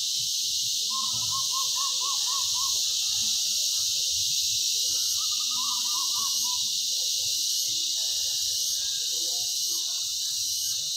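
Steady high-pitched drone of insects in chorus. Two short runs of rapid repeated chirps cut through it, about a second in and again about five seconds in.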